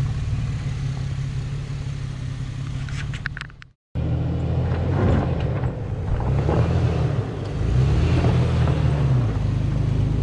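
Toyota FJ Cruiser's 4.0-litre V6 running at low revs as it crawls over rocks, with tyres grinding on gravel. The sound cuts out briefly a little before four seconds in. After that the engine note rises and falls with the throttle.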